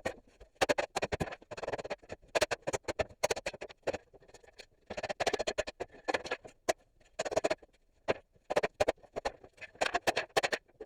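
Rubber mallet beating the boards off a wooden pallet: rapid, irregular blows in clusters, with short pauses between them.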